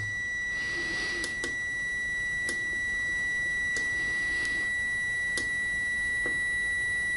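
UNI-T clamp meter's continuity beeper sounding a steady high beep, with a few faint clicks, while its probes sit across the router's reset switch. The switch reads only about 24 ohms when released instead of open, the sign of a faulty reset button.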